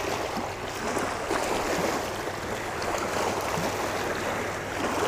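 Small waves lapping and washing steadily over a rocky, pebbly shoreline.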